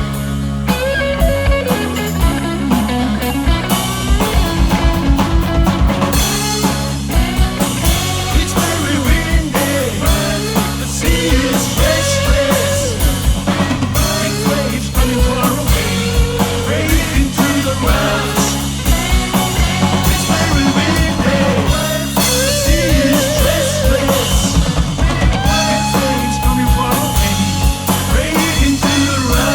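Rock band music: a drum kit keeping a steady beat under bass and electric guitar, with a wavering lead melody over the top.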